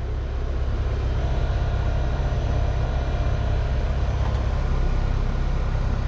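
Luxaire heat pump outdoor unit running steadily: a low, even hum of the compressor and condenser fan.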